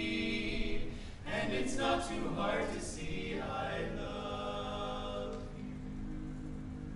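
Male barbershop quartet singing a cappella in close four-part harmony: a held chord, a short break about a second in, a moving phrase, then a long sustained chord that slowly fades.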